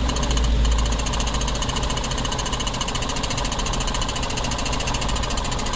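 A 2011 Jeep Wrangler's 3.8-litre V6 idling steadily, with a rapid, even ticking over a low hum. The engine has a misfire traced to the coil 2 ignition circuit.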